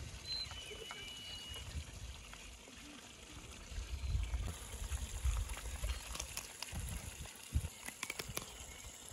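Whole cooked chicken being torn apart by hand: wet squelching of juicy meat and skin pulling away, with a few sharp crackles near the end.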